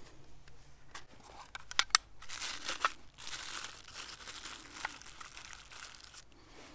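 A small metal tin of fire tinder being opened, with a few sharp metallic clicks about two seconds in, then several seconds of crinkling and tearing as the fluffy tinder is pulled apart inside the tin.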